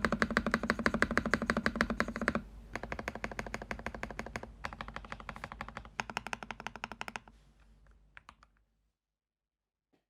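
Fast typing on a 60% mechanical keyboard with lubed Crystal Red linear switches, a firm, thocky keystroke sound. The typing is loudest for the first two seconds or so, goes on more softly in bursts, and stops about eight and a half seconds in.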